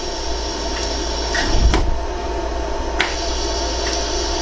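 Pulsed laser welding machine firing single shots onto a gold ring: about five sharp clicks at irregular spacing over the machine's steady hum.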